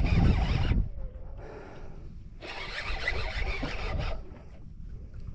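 Rubbing, rasping handling noise from hands working a fishing rod and reel close to the microphone. It comes in two bursts, the first with a low rumble that stops about a second in, the second about halfway through.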